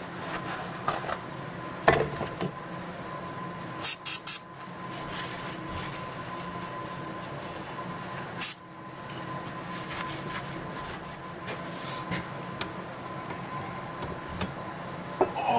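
Engine parts being handled at a workbench: a cloth rubbing over the engine's crankcase half, and sharp metal clinks and knocks as parts are moved, including three quick knocks about four seconds in, over a faint steady hum.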